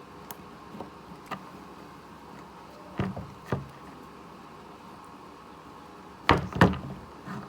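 A series of separate knocks and clatters over a faint steady hum: a few light taps early, two louder knocks about three seconds in, and the loudest pair in quick succession a little past six seconds.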